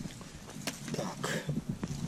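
Footsteps and rustling of a hiker walking along a forest trail: irregular light crunches and brushing sounds.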